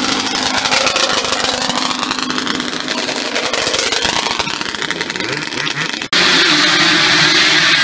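Yamaha Banshee two-stroke twin engines revving hard as quads launch and pull away, the pitch climbing and dropping through the gears. About six seconds in, an abrupt cut switches to a steadier high engine note.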